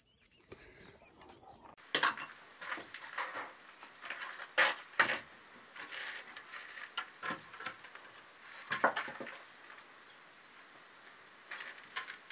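Irregular knocks and clatter from a long strip being handled and set against a door frame, about a dozen sharp hits, some in quick pairs.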